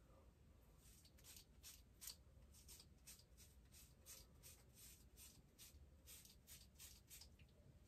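Faint, rapid scraping strokes of a hand razor cutting through a full beard, about two to three strokes a second.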